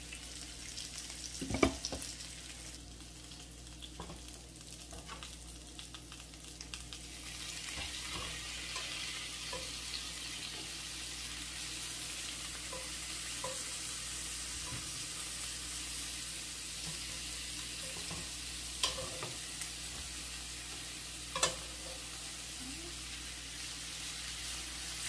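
Sausage and garlic sizzling in a nonstick skillet as boiled bok choy goes in and is stirred with a spatula; the sizzle grows louder about seven seconds in. A few sharp knocks of utensil on pan, the loudest near the start.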